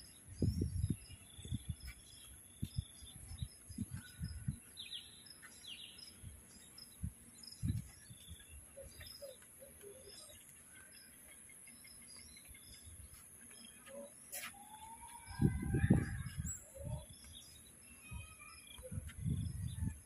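Birds chirping in short scattered calls over a steady high insect drone. Low rumbling thumps on the microphone come early and again later, loudest about three-quarters of the way through.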